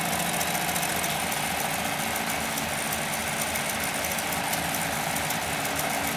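Heavy-duty compound-feed walking-foot lockstitch sewing machine (Cowboy CB-0618) on its variable-speed servo motor, stitching steadily at speed with a rapid, even rhythm of needle strokes.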